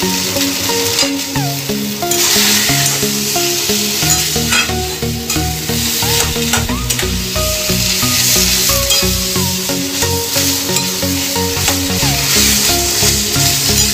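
A metal spatula stirring and scraping a thick boiled-vegetable and beetroot mash frying in an aluminium kadai, the mixture sizzling, over background music with a melody of held notes.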